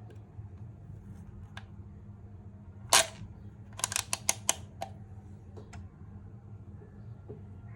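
Hard plastic clicks and clacks, as of the toy blaster or its parts being handled: one loud clack about three seconds in, then a quick run of about six clicks, over a low steady hum.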